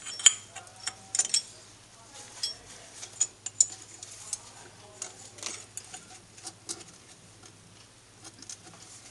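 Steel Allen keys and a steel pipe clinking and tapping against the lathe's cast-iron bed as a hex key is fitted into a socket-head bolt and the pipe slid over it for extra leverage: a scatter of light metal clicks.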